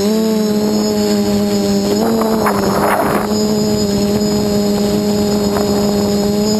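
Quadcopter's brushless motors (SunnySky 2216 800KV) spinning 8-inch carbon props in flight: a steady buzzing hum whose pitch steps up slightly as the throttle changes, once near the start and again about two seconds in. A brief rush of wind-like noise comes around the middle.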